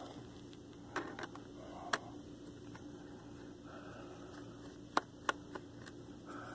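Faint, scattered clicks of a small screwdriver working the screw on a laptop's plastic hard drive cover as the screw is loosened. The clicks come in two groups, three about a second in and three more past the middle, over a low steady hum.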